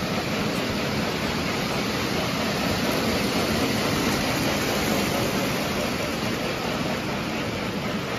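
Lionel O gauge steam locomotive and freight cars running on three-rail track: a steady rolling rumble of metal wheels and motor.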